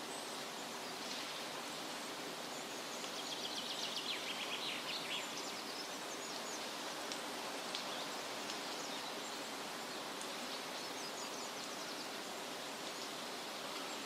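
Steady outdoor background noise by a lake, with a short run of rapid, high chattering bird calls about three to five seconds in and a few more near ten seconds.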